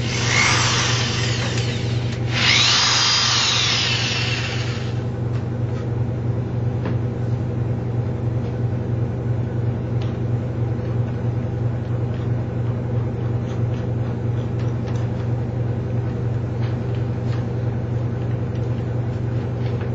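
Power drill running in two bursts over the first five seconds, the motor's whine rising and falling in the second burst. After that only a steady low hum with a few faint clicks remains.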